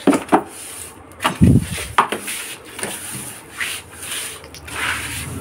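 Broom sweeping a terrazzo floor: repeated bristle strokes scraping across the stone chips. A few knocks, the heaviest about one and a half seconds in.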